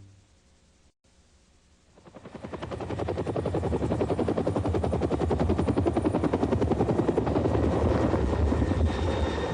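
Near silence, then about two seconds in a helicopter's fast, regular rotor chop fades in and runs steadily.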